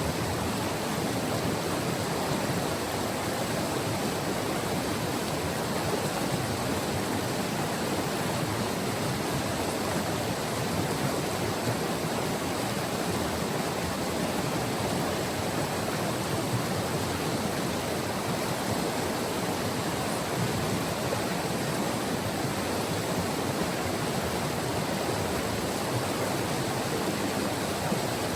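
White River rushing steadily over its bed: an even, unbroken water noise with no distinct splashes or changes.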